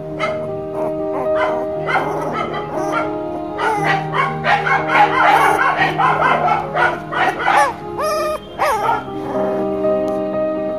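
An Indian pariah (indie) puppy yipping and whimpering in play: many short, high cries, thickest in the middle, over background music with long held notes.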